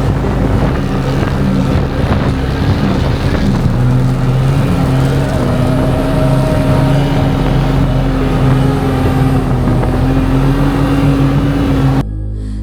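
UAZ off-road vehicle's engine running hard at high, fairly steady revs over a rough, noisy roar, cutting off abruptly near the end.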